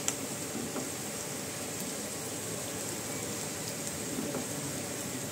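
Chopped onion, green chillies, curry leaves and peanuts sizzling steadily in hot oil in a nonstick kadhai while being stirred with a silicone spatula. One light click right at the start.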